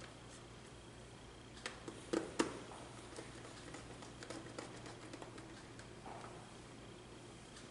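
Handling noise from wiring a contactor: a few sharp clicks and taps from about one and a half to two and a half seconds in, then lighter scattered ticks, as hands work wires into its screw terminals.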